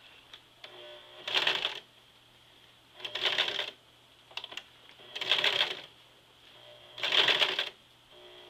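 Sewing machine stitching through jeans denim in four short spurts about two seconds apart, each lasting about half a second.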